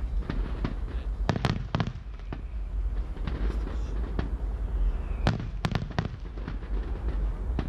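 Aerial firework shells bursting in an irregular string of bangs and crackles over a constant low rumble. The reports come in quick clusters about a second and a half in and again just past five seconds.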